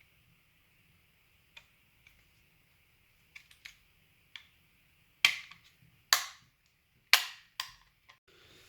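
Gel blaster gearbox parts being handled during reassembly: a series of sharp clicks and taps, a few faint ones at first, then five louder ones in the last few seconds.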